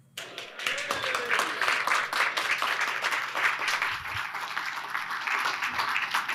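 Audience applauding, the clapping starting suddenly just after the start and going on steadily.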